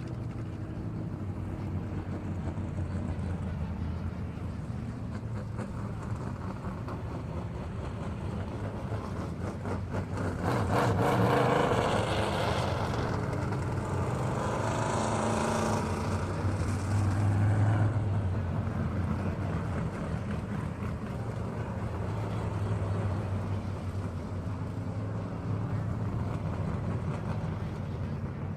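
Car engine running with a steady low hum, growing louder for several seconds in the middle with a brief patch of rapid clicking, then settling back to the steady hum.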